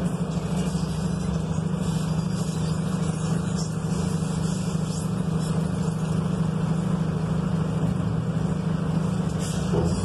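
Mercedes-Benz bus diesel engine running at a steady, unchanging note, heard from inside the passenger cabin.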